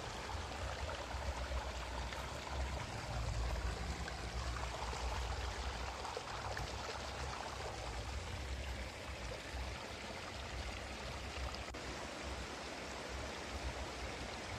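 Steady, even hiss with a low hum beneath it, unchanging throughout; the crochet hook and yarn make no distinct sound of their own.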